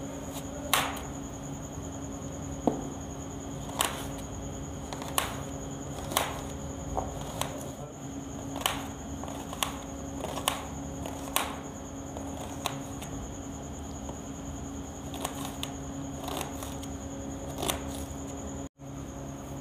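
Kitchen knife slicing a red onion on a plastic tray: sharp clicks of the blade striking the tray, about one a second and unevenly spaced, over a steady background hum. The sound cuts out for an instant near the end.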